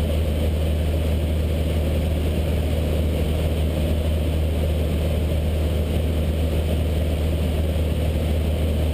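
Cessna 152's four-cylinder Lycoming engine and propeller running steadily in flight, heard inside the cabin as an even, low drone.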